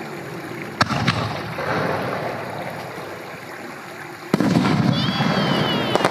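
Aerial firework shells bursting: two sharp bangs about a second in, then a louder burst about four seconds in, followed by crackling. A high wavering whistle comes in near the end.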